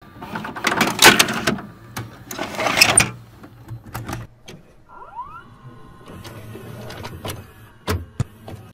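A VHS tape being loaded into a video cassette recorder: the mechanism whirs and clunks twice in the first three seconds, with sharp clicks and a short rising whine about five seconds in, and a knock near the end.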